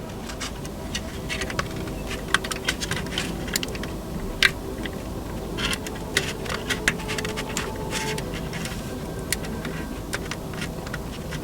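Small, irregular clicks and light scratches of a tool working at the plastic lugs that hold the cab seating inside an OO-gauge Dapol Class 121 railcar body, over a faint steady hum.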